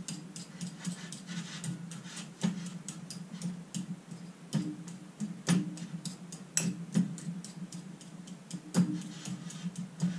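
A fork clicking and scraping against a bowl while mashing boiled eggs, in irregular taps with a few sharper knocks. A steady low hum runs underneath.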